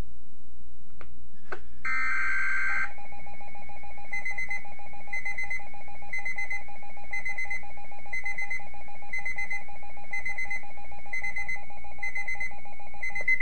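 Weather radio emergency alert signal. A short burst of warbling digital data tones is followed by a steady alert tone of about ten seconds, with a higher beep repeating about once a second over it. This signals that a new weather bulletin is about to be broadcast.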